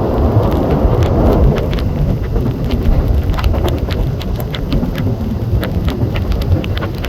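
Passenger train running along the track: a steady low rumble with frequent sharp clicks and rattles.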